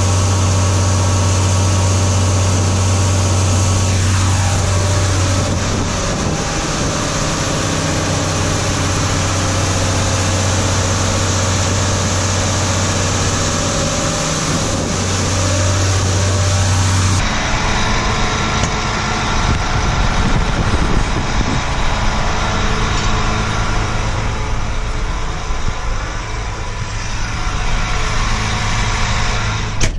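A farm vehicle's engine running steadily with a low drone. About halfway through the sound changes abruptly to a different engine noise.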